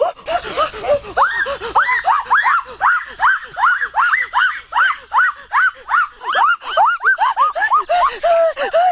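Shrill laughing cries from a voice, each a quick rise and fall in pitch, repeating about three times a second and going higher from about a second in.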